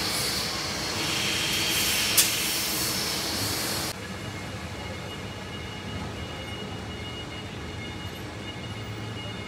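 Car assembly plant floor ambience: steady machinery and ventilation noise with a hiss, and a single sharp clank about two seconds in. Near four seconds in, the noise drops suddenly to a quieter steady hum.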